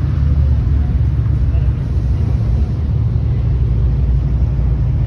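Steady low rumble of an idling engine, even throughout.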